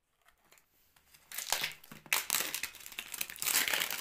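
Clear plastic wrapping on a phone box being torn open and crinkled. The crackling starts about a second in and grows louder and denser toward the end.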